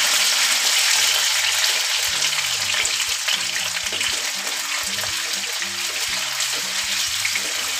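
Potato cubes sizzling in hot oil with cumin seeds in a nonstick kadhai as a spatula stirs them: a steady crackling hiss that eases slightly after the first couple of seconds.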